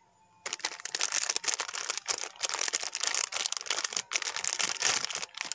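Plastic wrapper of a Buldak 3x Spicy ramen packet crinkling as it is handled close to the microphone, a dense run of crackles starting about half a second in.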